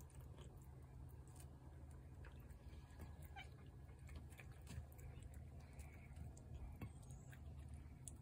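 Near silence: a low steady hum with scattered small clicks, and one brief faint cat meow a little after three seconds in.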